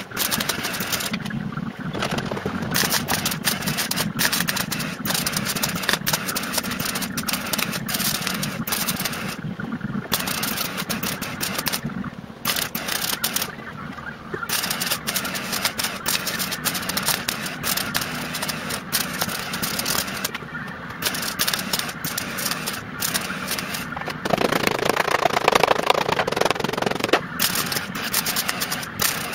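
MIG welder crackling through a run of short plug welds along the chassis leg and floor pan, with brief pauses between welds and a louder stretch near the end, over a low steady hum.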